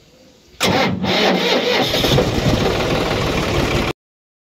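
John Deere 5310 tractor's three-cylinder diesel engine starting suddenly about half a second in, then running loudly, heard close to its exhaust pipe. The sound cuts off abruptly near the end.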